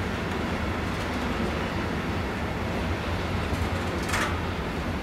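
Freight train of bogie hopper wagons rolling past, with a steady low rumble of wheels on the rails. A brief sharp, high noise cuts in about four seconds in.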